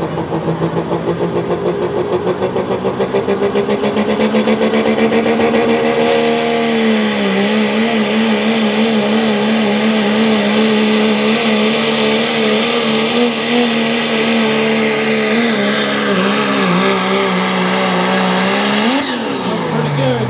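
Diesel engine of a Dodge Ram 4x4 pulling truck at full throttle dragging a weight-transfer sled: the engine note climbs over the first several seconds, then holds with a wavering pitch as the sled bogs the truck down. Near the end the revs rise briefly, then fall sharply as the driver lets off at the end of the pull.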